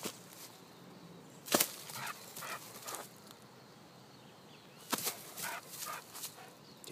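Old Irish setter playing on dry leaf litter: a few short, sharp sounds, the loudest about one and a half seconds in and another about five seconds in, with smaller ones between.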